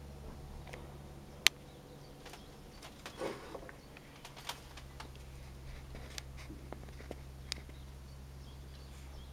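A steady low drone under scattered sharp clicks and ticks, the loudest click about one and a half seconds in.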